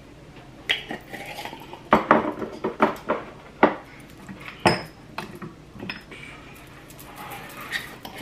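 Spice bottles and shakers clinking and knocking as they are handled: a string of sharp clicks and clatters, busiest in the middle, one with a short ring.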